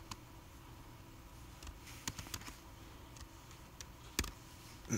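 Faint, scattered keystrokes on a computer keyboard: a few taps around the middle and one sharper click near the end.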